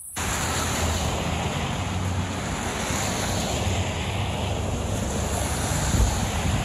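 Loud, steady rushing noise with a low rumble, from wind buffeting the camera's microphone in the rain. It cuts in abruptly and cuts off just as suddenly.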